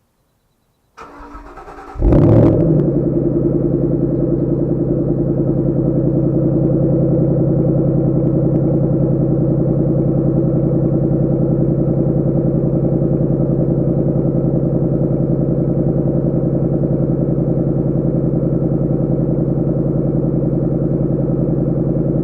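2014 Ford Shelby GT500's supercharged 5.8-litre V8 being started: the starter cranks about a second in, the engine catches a second later with a loud flare of revs, then settles into a steady idle.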